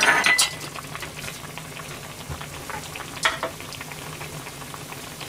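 A metal ladle set down with a clatter and ringing clink into a small porcelain dish, followed by a pot of soup simmering with a faint low hum; another light clink about three seconds in.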